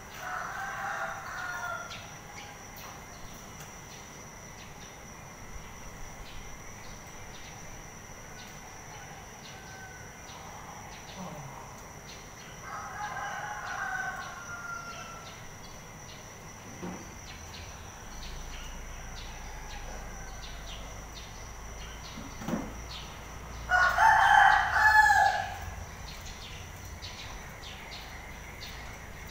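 A rooster crowing three times, about ten seconds apart, the last crow near the end the loudest, over a steady high-pitched insect trill.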